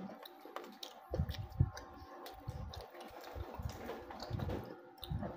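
Close-up mouth sounds of someone chewing pizza: scattered small wet clicks and smacks, with short low bumps and a faint steady hum underneath.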